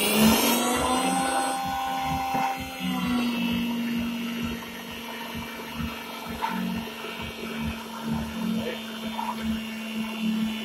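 Tesla Model S electric motor running at steady speed on a test spin-up, giving a steady whine, with a higher tone that fades out about three seconds in.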